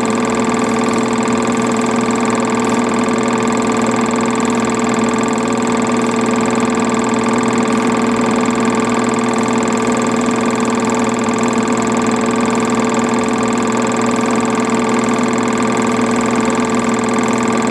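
8mm film projector running steadily: a constant mechanical drone of motor and film transport with a steady hum that does not change.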